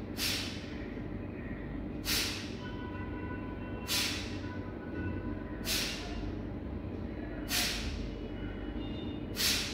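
Six short, forceful exhalations through the nose, one about every two seconds, each a sharp hiss of air: kapalbhati pranayama breathing.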